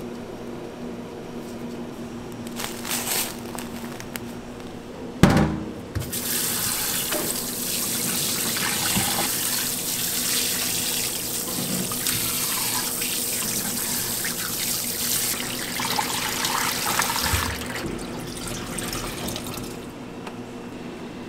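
Kitchen tap running onto raw chicken in a stainless steel sink while gloved hands rinse and rub it. The water starts about six seconds in, just after a sharp knock, and stops near the end, leaving quieter wet handling. A steady low hum sits underneath.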